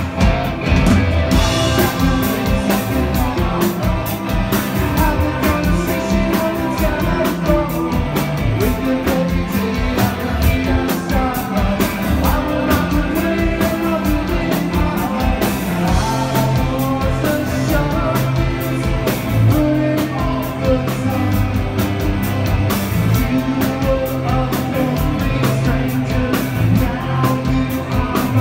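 Live rock band playing: guitar, bass and drums, with a singing voice.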